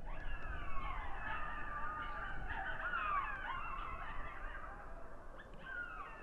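A group of African golden wolves howling together: several overlapping howls that slide up and down in pitch and weave over one another.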